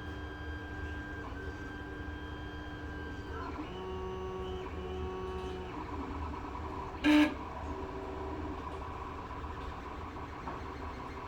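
Creality CR-10 S5 3D printer running, its stepper motors whining at steady pitches that shift every second or two as the axes move. About seven seconds in there is one loud, short grinding burst: the grinding noise that is the printer's fault.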